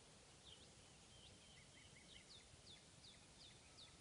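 Faint bird chirping over a near-silent outdoor hiss: a run of short, high, falling chirps, about two or three a second, from about half a second in until near the end.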